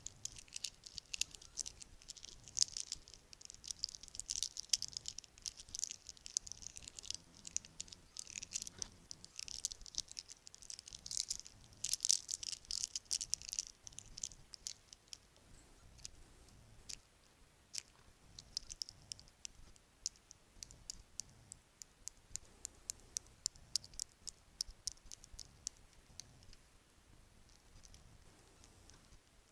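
Bracelets clinking and jingling against each other, in a dense rattle over the first half that thins to separate small clicks later on.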